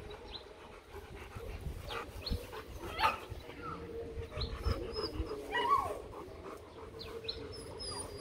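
Rottweilers panting, with a brief falling whimper near the middle.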